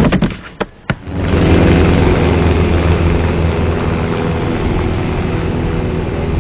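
A few sharp knocks in the first second, then the steady drone of an aircraft engine.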